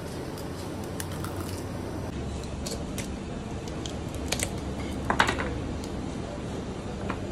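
Knife working along a whole fish's backbone on a plastic cutting board: irregular clicks and scrapes of the blade on bone and board, the loudest a short rasp about five seconds in. A steady low hum runs underneath.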